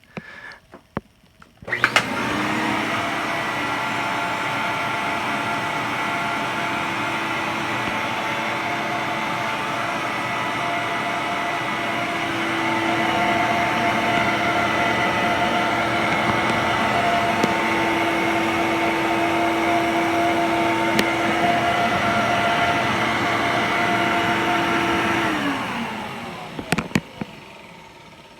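Fantom cyclonic vacuum cleaner switched on about two seconds in, running with a low, deep, throaty motor and steady whistling tones from its cyclones, getting a little louder about halfway through. It is switched off near the end and winds down. The unused 22-year-old machine runs normally.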